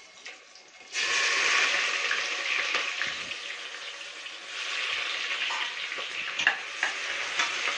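Chopped onions hitting hot oil in a pressure cooker start sizzling suddenly about a second in. The frying hiss carries on while they are stirred, with a few clicks of the spoon near the end.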